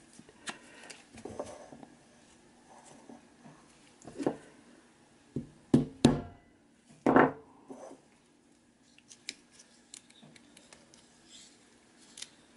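Gloved hands handling a metal camera lens: light clicks and rustles, then about six seconds in a few loud knocks of the lens against a wooden block, the last one slightly drawn out.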